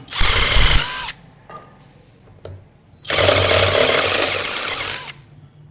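A power tool, likely an impact wrench, runs in two bursts, a short one near the start and a longer one of about two seconds in the second half, on a Honda CG 125 rear sprocket bolt nut. The nut will not come off: the bolt spins with it, its threads (or the nut's) damaged.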